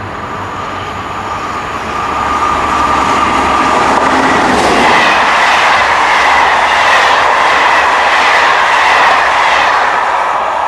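Electric locomotive hauling Corail passenger coaches past at speed. A steady high whine is heard as it approaches, then the coaches pass loudly with a rhythmic clickety-clack of wheels over the rail joints. The sound eases off near the end as the train moves away.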